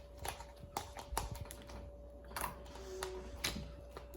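Clear glue slime being worked and stirred, giving off irregular small sticky clicks and ticks. A faint steady hum sits underneath.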